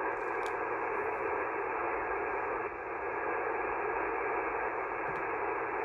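HF amateur-band receiver hiss through a transceiver's speaker: a steady band of static with no station coming through, as a weak distant station is being listened for.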